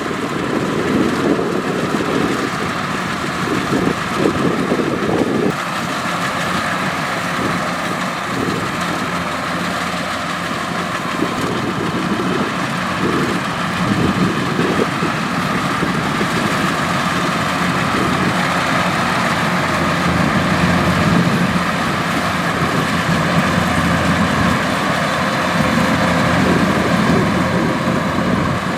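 Kubota DC-105X combine harvester's diesel engine and machinery running steadily, the lower part of the din swelling and easing now and then.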